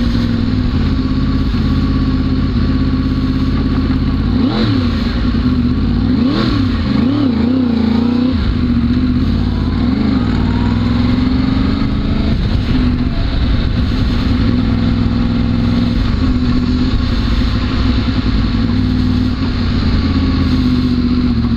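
A 2011 Yamaha R1's crossplane inline-four running through a K-Factory titanium exhaust while ridden at low road speed. The revs rise and fall a few times about five to eight seconds in.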